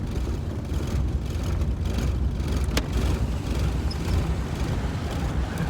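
Steady low rumble of motor vehicle engines, with a single sharp click a little under three seconds in.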